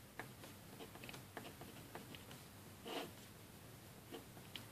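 Ballpoint pen writing on paper: faint, short scratching strokes and small ticks as figures are written, with one slightly louder stroke about three seconds in.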